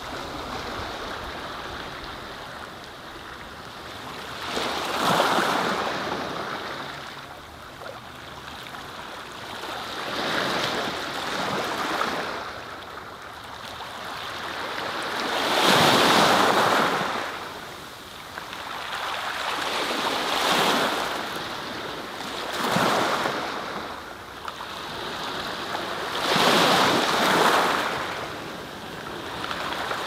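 Sea surf: waves breaking and washing in, a rushing sound that swells and fades every four to six seconds, with the biggest surge about halfway through.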